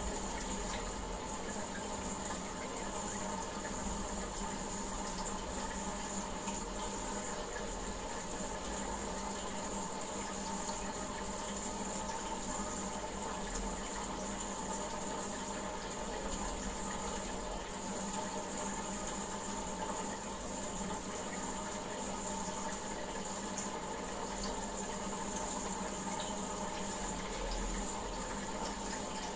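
Aquarium water running and splashing steadily, as from a tank's filter or bubbler, with a steady hum beneath it.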